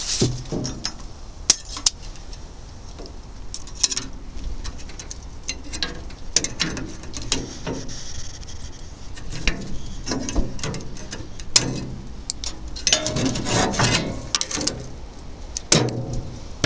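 Scattered clicks, snips and rubbing as scissors and packaging are worked by hand, over a steady low wind rumble on the microphone.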